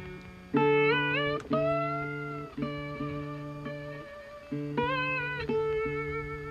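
Background music: plucked guitar with bending, sliding notes over a low bass line.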